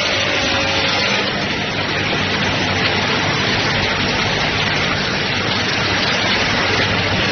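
Steady factory machinery noise from an automated pressure-cooker production line with robotic arms running: a dense, even hiss over a low hum.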